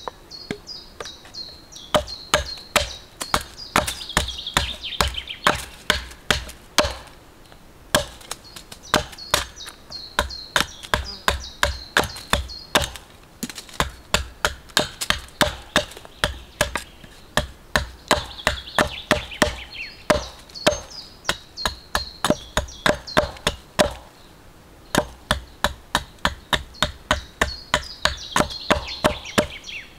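Hatchet chopping a green wooden stick to a point against a log: quick runs of sharp blade strikes, about three a second, broken by short pauses.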